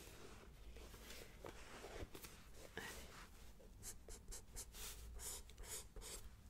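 Pencil sketching on paper in a spiral-bound sketchpad, close to the microphone: soft, scratchy strokes that come quicker and crisper in the second half.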